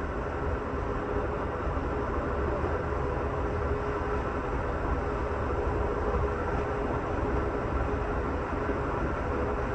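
Steady rumble of an Amtrak Superliner sleeping car rolling at speed, heard from inside the lower-level roomette, with a faint steady tone running through it.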